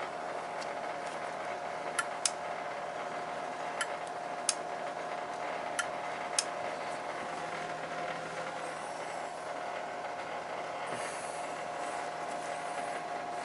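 Oil boiler's burner equipment running with a steady hum and a held tone. About six sharp clicks sound in the first half.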